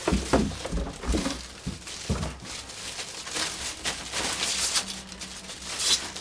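Packaging being handled while a computer monitor is unpacked: a few dull knocks, then rustling and crinkling of wrapping for the last few seconds.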